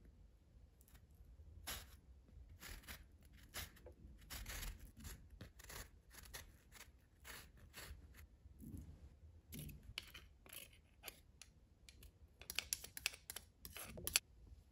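Orange peel rubbed against a fine hand-held zester grater: a series of short rasping strokes, about one a second. Near the end a quick run of sharper, louder taps as the grater is knocked against the ceramic bowl to free the zest.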